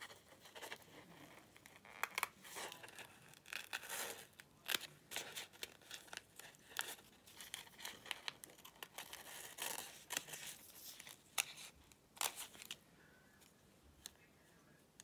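Small spring-loaded snips cutting thin fabric in many short snips, with the fabric rustling as it is handled; the cutting stops about thirteen seconds in.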